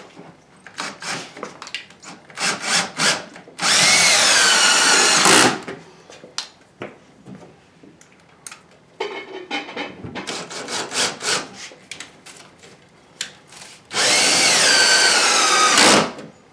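Cordless drill driving two screws into wood, each run lasting about two seconds, the motor's whine bending in pitch as the screw bites. Scattered clicks and knocks from setting the next screw come between the two runs.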